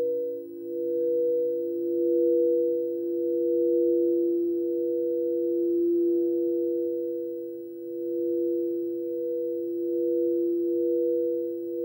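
Frosted quartz crystal singing bowls being sung by rubbing mallets around their rims: two steady overlapping tones, one lower and one higher, slowly swelling and ebbing.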